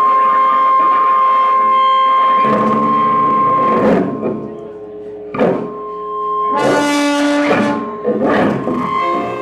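Amplified noise music built on a brass horn. A steady high tone with overtones holds for the first few seconds, then gives way to a run of loud, rough blasts, the longest about seven seconds in.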